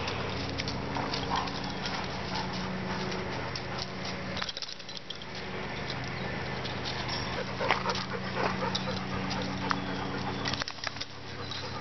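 Dogs play-fighting, with a steady low growl that breaks off briefly about four and a half seconds in and stops shortly before the end, and scuffling and rustling in dry leaves.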